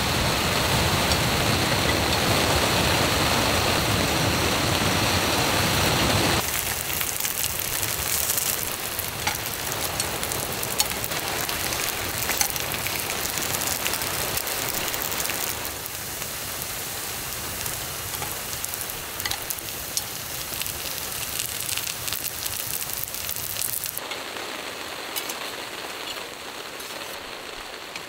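Heavy rain pouring down on a tent, a steady dense hiss. It drops abruptly in level about six seconds in and again further on.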